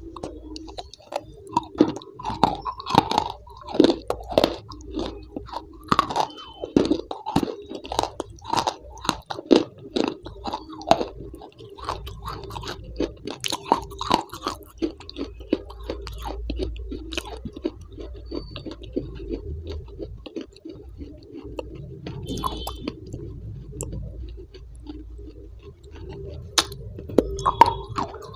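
Close-miked chewing of something hard and brittle, with many sharp crunches, thick at first, thinning out in the middle and picking up again near the end.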